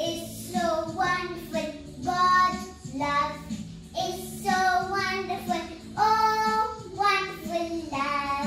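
A young girl singing solo, in phrases of held notes with short breaks between them.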